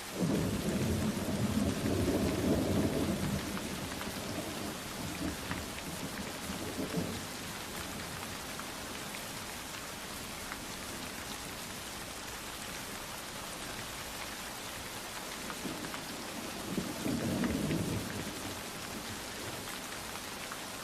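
Steady rain hissing, with a roll of thunder at the start lasting about three seconds and another rumble about seventeen seconds in.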